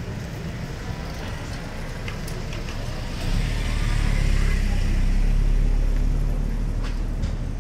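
A motor vehicle passing close by: a low engine rumble that swells suddenly about three seconds in, peaks in the middle and fades away toward the end.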